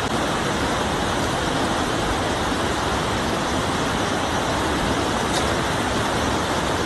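Steady rushing of a muddy flash flood pouring across a road, an even, unbroken noise.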